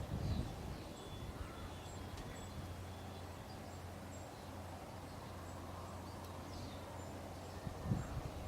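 Distant farm machinery running steadily with a low hum, under faint bird chirps; low gusts of wind hit the microphone near the end.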